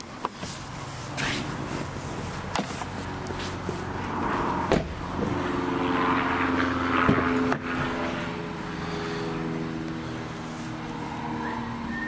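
Land Rover Evoque's engine running steadily, with several sharp clicks and a rushing hiss that swells and fades in the middle.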